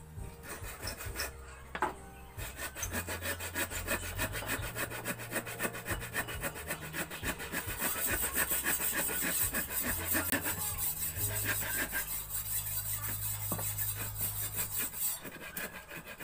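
Hand saw cutting through a wooden block in quick back-and-forth strokes, a fast rasping rhythm that grows stronger midway and stops shortly before the end.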